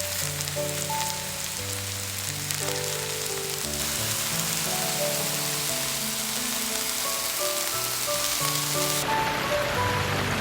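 Vegetable pancake batter frying in plenty of oil in a pan, a steady dense sizzle, with a gentle melody playing over it. About nine seconds in, the hiss changes and becomes the sound of rain.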